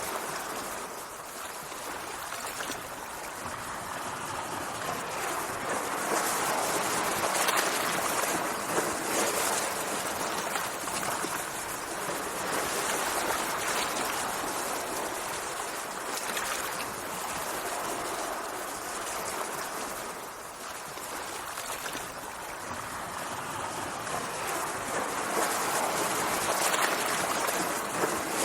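Sea water washing and churning, a steady rush that swells and eases slowly every several seconds.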